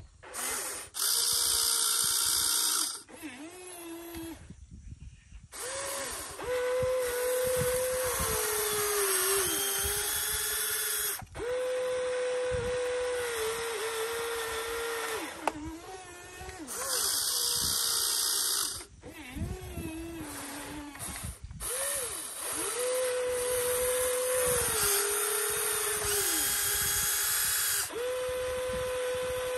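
Huina RC excavator's small electric motors whining as the boom, arm and turntable move. The whine starts and stops over and over, often sliding down in pitch as a movement ends, and grows louder in a few stretches.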